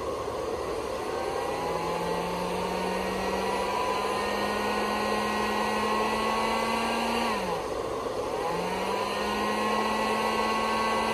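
Heat gun and power inverter running under a load of about 100 amps: a steady blowing whir with a motor whine that climbs slowly, winds down about seven seconds in, then spins back up and climbs again.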